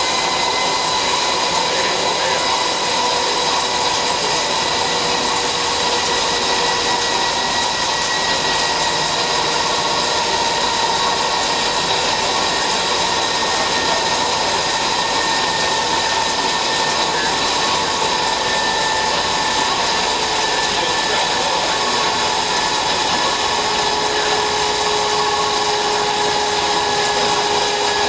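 DHL-1120x2000 CNC flat-bed lathe machining a part: steady cutting and machine noise with a whine that slowly drops in pitch.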